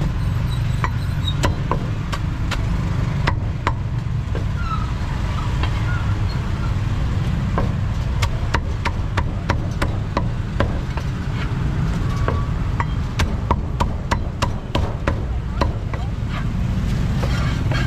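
Meat cleaver chopping through a roast duck onto a thick wooden chopping block: dozens of sharp chops, coming in quicker runs in the second half. A steady low rumble runs underneath.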